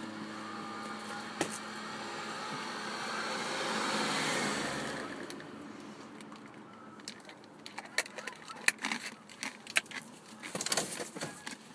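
A vehicle passing by: a rushing noise that swells to a peak about 4 seconds in and then fades. Then a run of small sharp clicks and knocks from handling things in the car.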